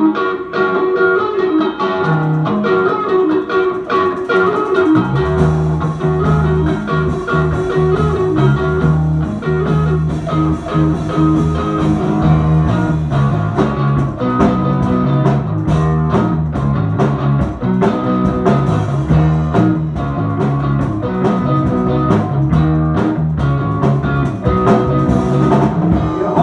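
Live progressive rock band playing an instrumental intro: an electric guitar riff over drums, with the bass guitar coming in heavily about five seconds in.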